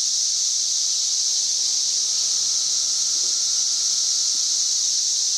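Dense cicada chorus: a loud, steady, high-pitched buzzing drone that never lets up.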